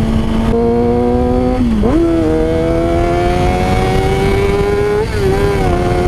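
Honda CBR600RR's inline-four engine under way, with wind rushing past the microphone. The engine's pitch dips sharply about two seconds in, climbs steadily for the next few seconds, then drops again near the end.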